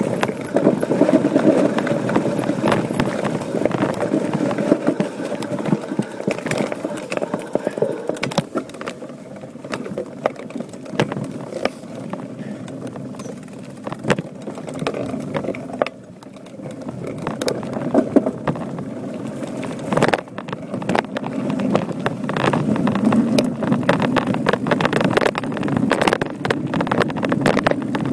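Voodoo Bizango mountain bike ridden over a rough dirt trail: a steady rumble of tyres on dirt, with the bike clattering and rattling at every bump.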